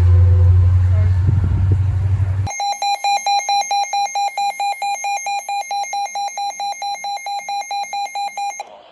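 A low commuter-train rumble cuts off abruptly, and a phone's emergency alert tone sounds: a loud, rapidly pulsing high beep about four to five times a second that stops suddenly near the end.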